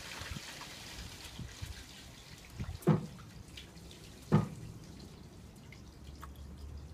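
Shallow water in a stainless-steel basin, with small drips and wet ticks as pond slider turtles move in it. Two sharp, louder knocks come around the middle, about a second and a half apart.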